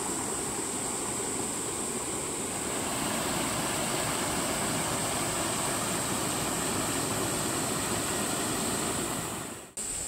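Mountain stream rushing steadily over granite slabs and rocks; the sound dips out suddenly near the end.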